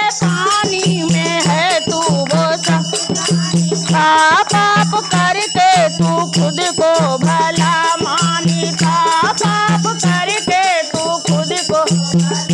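Dholak drum played with the hands in a steady folk beat, with hand-held rattles and a small metal bell jingling, under women's voices singing a Hindu devotional bhajan.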